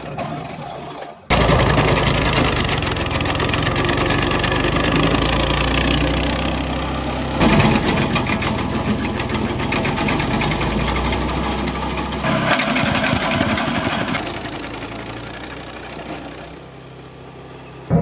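Petrol-engined wood chipper running, its engine and cutting mechanism making a steady loud mechanical noise. Several clips are cut together, so the sound changes abruptly about a second in and a few more times, and drops quieter near the end.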